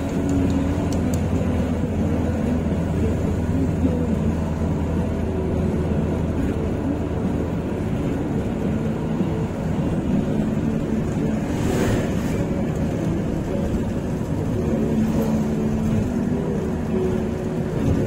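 Car driving along: steady engine and road noise, heaviest in the low end, with a brief hiss about twelve seconds in.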